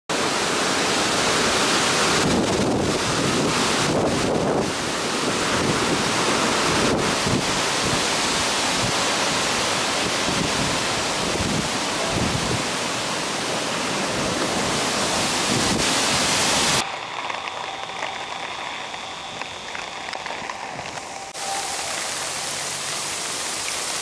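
Typhoon wind and heavy rain: a loud, steady rush of gusts buffeting the microphone over the downpour. About seventeen seconds in it cuts abruptly to quieter rain, which steps up again a few seconds later.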